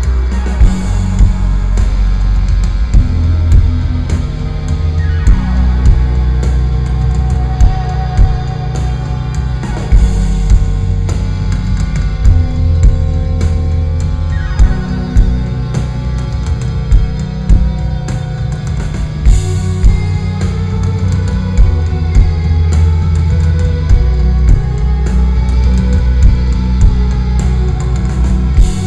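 Live band playing electronic rock through a concert PA: heavy bass, a steady drum beat, guitar and synthesizers, with a falling synth sweep about five seconds in and again near fifteen seconds.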